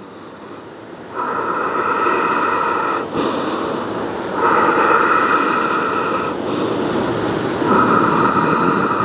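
A person breathing slowly and audibly, close to the microphone: a run of long, hissing inhales and exhales, each about one to two seconds.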